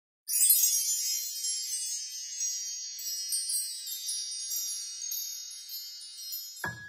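A shimmering, high-pitched chime sound effect, many bright ringing tones like a wind chime struck at once, loudest at its onset and slowly fading away. Just before the end, music with keyboard notes over a low beat comes in.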